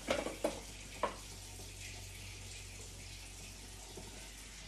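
Three sharp knocks as a spatula is knocked against the Thermomix's steel mixing bowl, then a kitchen tap running steadily.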